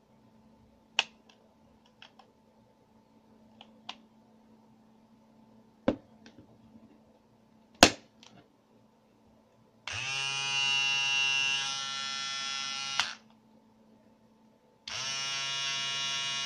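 Kemei KM-680A grooming kit's handheld trimmer/shaver: a few sharp plastic clicks as it is handled and an attachment is fitted, then its motor is switched on and buzzes steadily for about three seconds, stops, and runs again for about two and a half seconds.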